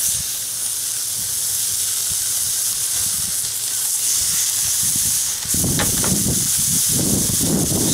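Raw ground-chuck burger patties sizzling steadily on a grilling stone heated to about 400°F, with a few soft low knocks in the second half.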